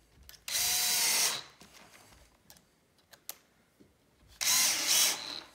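Cordless drill driving screws into pre-drilled pocket holes in wood: two short runs of the motor, each under a second, about four seconds apart, with a few light clicks between them.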